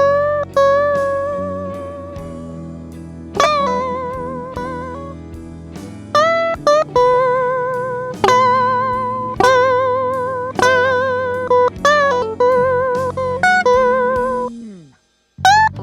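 Guitar playing a slow blues lead: single picked notes with string bends and vibrato over a sustained low backing. It stops for about a second near the end, then starts again.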